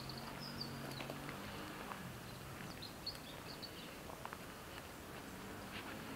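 Garden ambience picked up by an action camera's built-in microphone while it is carried on foot: faint bird chirps, short and high, just after the start and again around the middle, over a low steady hiss, with a few soft footsteps or clicks.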